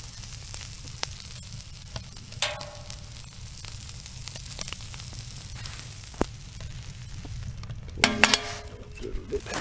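Dried caplin sizzling and crackling on the hot top of a wood-burning tent stove, a steady hiss with small pops. A short squeak about two and a half seconds in, and a louder metallic squeak and clatter near the end.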